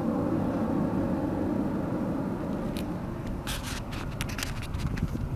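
Low road and tyre rumble of a Fiat 500e electric car rolling slowly, with no engine note, dying away over the first few seconds. After that come a series of irregular sharp clicks.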